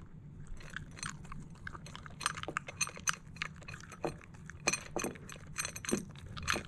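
A dog eating dry kibble from a bowl fitted with a silicone slow-feeder insert: irregular crunching and clicking as it picks the kibble out from between the fins.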